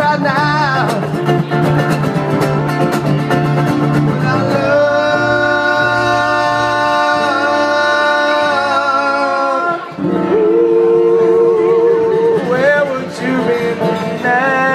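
Live acoustic duo: two acoustic guitars strummed while a man sings, holding one long note with a slight waver from about four and a half to ten seconds in.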